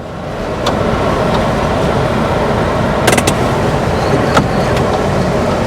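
Car driving slowly over a rough road, heard from inside the cabin: a steady running and tyre noise with a few knocks and rattles, a cluster of them about three seconds in.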